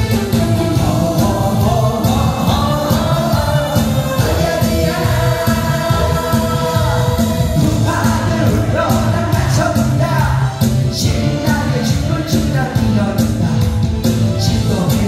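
A singer sings a Korean trot song into a handheld microphone over a loud karaoke backing track with a heavy, steady beat, amplified through the hall's speakers.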